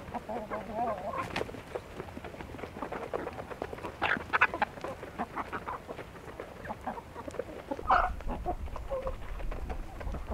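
Flock of chickens clucking and calling softly in short, scattered notes, with small clicks and scratches among them. A low rumble sets in about eight seconds in.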